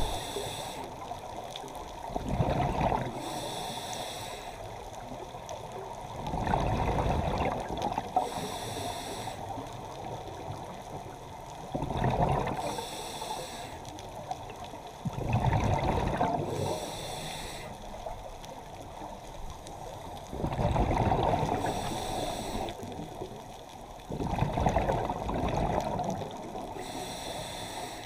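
Scuba diver breathing through a regulator, heard underwater. A hiss and a bubbling rush of exhaled bubbles repeat in a steady cycle about every four to five seconds, some six times.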